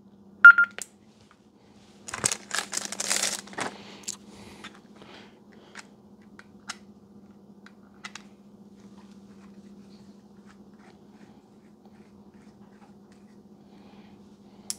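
A single short electronic beep from a Baofeng UV-5R handheld radio as its top knob is worked. It is followed by a cluster of clicks and plastic handling noise as the antenna is fitted, then a few scattered clicks, over a faint steady low hum.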